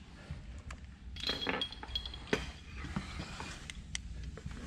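Metal clinks and knocks as a hydraulic aircraft bottle jack and its handle are moved about and set down on a concrete floor: a few sharp clinks, the first, about a second in, with a brief metallic ring.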